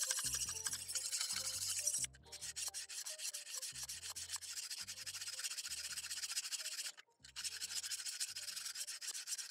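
Diamond hone of a DMT guided alignment sharpener stroked rapidly along a clamped steel knife edge: a continuous gritty scraping made of many quick strokes. It breaks off briefly about two seconds in and again, a little longer, about seven seconds in.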